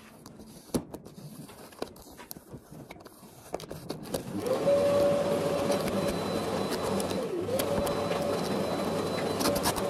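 Paper label being peeled off a plastic storage drawer unit, with small crinkles and clicks. From about four seconds in, a louder steady motor hum with one held pitch comes in, its pitch dipping briefly once partway through.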